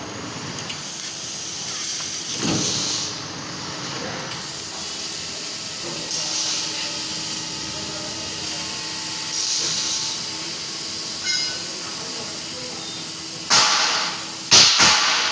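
CNC metal-cutting machine at work, a steady hiss of its cutting torch with a faint hum, swelling briefly every few seconds and breaking into several sudden, louder hisses near the end.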